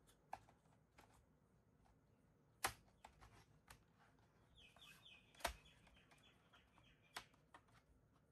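Faint, sparse clicks and taps of a screwdriver and small screws as the laptop's plastic RAM cover is screwed back on, about four distinct clicks with smaller ticks between. A faint high-pitched sound lasts a couple of seconds past the middle.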